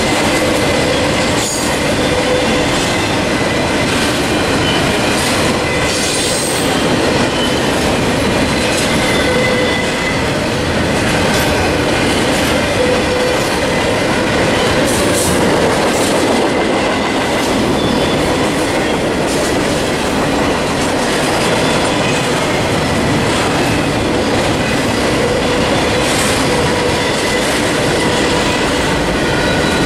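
Double-stack intermodal container train's well cars rolling past: a steady, loud noise of steel wheels on rail, with thin, steady wheel squeals running through it.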